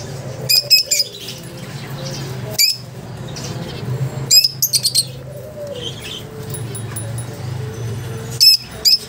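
Caged lovebirds giving shrill, sharp chirping calls in four short clusters, over a steady low background hum.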